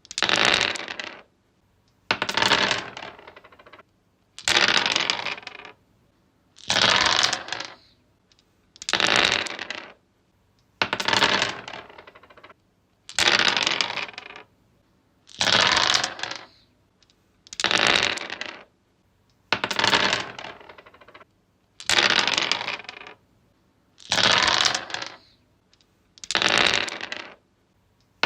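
Dice rolled again and again on a wooden surface: about thirteen separate clattering rolls, each lasting about a second and ending in a short rattle, at an even pace of one every two seconds or so.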